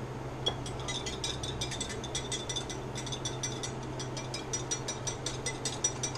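Wire whisk beating a powdered-sugar and milk glaze, clicking rapidly against the side of the bowl, about eight clicks a second, with a light metallic ring.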